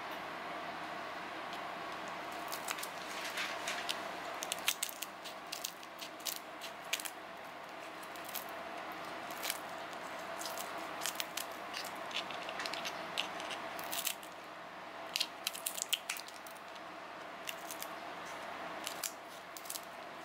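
Kitchen scissors snipping through the shells of mantis shrimp: irregular sharp snips and crunches, several in quick clusters, over a faint steady hum.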